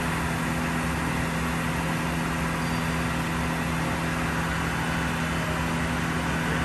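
Doosan DB-130C CNC horizontal boring mill's spindle running steadily at its top speed of 2,500 rpm. It makes an even mechanical hum with two steady tones and a layer of hiss.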